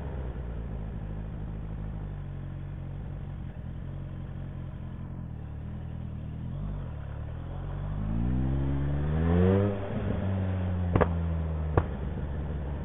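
Motorcycle engine running with its muffler removed, an open exhaust, at low parking-lot speed. About eight seconds in it revs up and drops back, followed by two sharp pops about a second apart.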